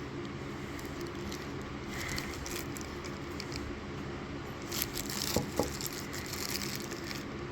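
Quiet handling of a pocket knife and its packaging, with soft rustling and a few faint clicks about five seconds in, over a steady low background hum.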